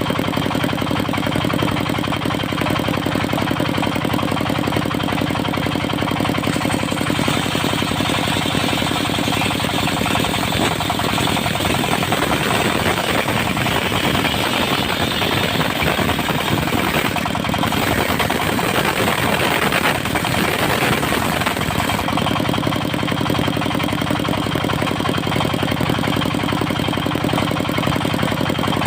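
Diesel engine of a mobile circular sawmill running steadily. For about fifteen seconds in the middle, a louder hiss joins it, the sound of the saw blade cutting through a teak log.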